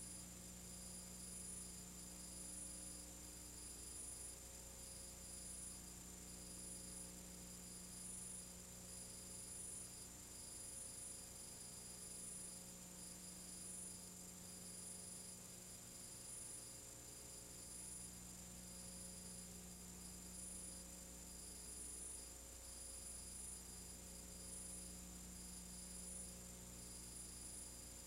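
Faint steady electrical hum with a thin high whine and hiss: the empty soundtrack of a silent film transfer, with no sound from the action.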